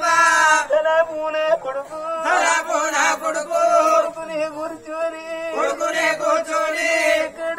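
Oggu Katha folk singing: voices chant a wavering melodic line over a steady held tone.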